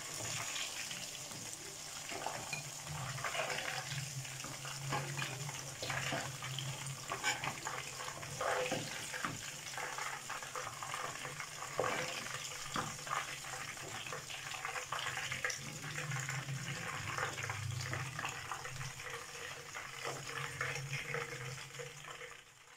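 Batter-coated chicken pieces deep-frying in hot oil in a wok, a steady sizzle and crackle, with scattered clicks and scrapes of a metal slotted spatula against the pan as the pieces are lifted out. A low hum runs underneath. The sizzle is the sound the cook takes as a sign that the pieces are cooked through to the inside.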